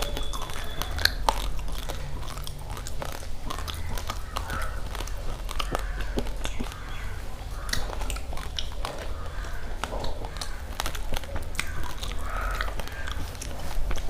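Raw rice grains being chewed and crunched between the teeth: a dense, irregular run of sharp crackling clicks over a steady low hum.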